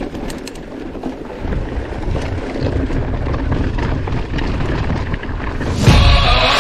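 Wind buffeting the microphone over the rattle and rumble of mountain bike tyres on a dirt trail during a descent, getting louder after about a second and a half, with a few sharp clicks early on and a louder surge near the end.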